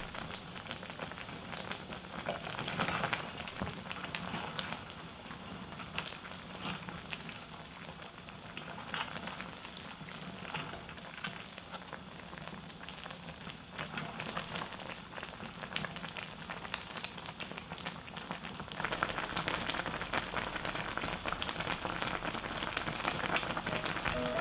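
Spicy skate stew (hongeo-jjigae) boiling in a stainless steel pot: a steady crackle of bubbles popping, a little louder near the end.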